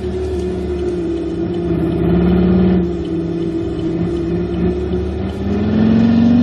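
Simulated sports-car engine sound from a SoundRacer gadget, holding steady revs. It rises a little in pitch and gets louder near the end.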